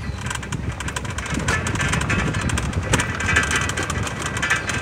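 A small vehicle driving along a dirt road: its motor running with a steady low rumble and frequent small rattles and knocks.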